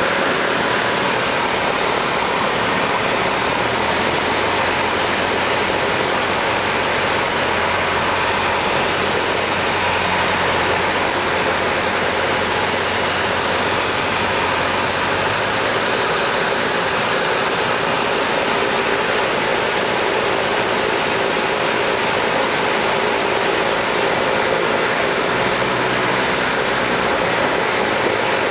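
Cessna 172's piston engine and propeller running steadily under a constant rush of air noise; a low hum underneath fades out about halfway through.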